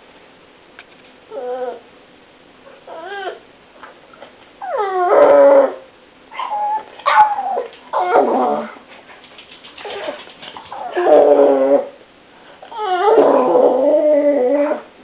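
Boston terrier whining: a string of about seven wavering, warbling cries that bend up and down in pitch, some drawn out into howl-like moans, the longest lasting about two seconds near the end.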